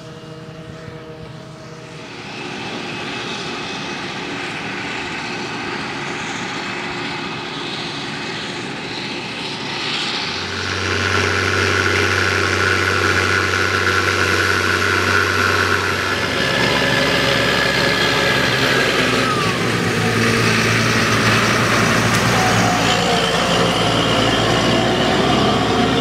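Forage harvester and tractor diesel engines running during maize harvesting: a steady machinery drone with several held tones. It grows louder about ten seconds in, when a Massey Ferguson tractor pulling a trailer comes close.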